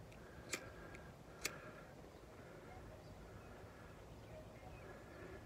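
Two sharp clicks about a second apart as a hand lighter is struck to relight a wax-soaked cotton round fire starter, over faint wind noise.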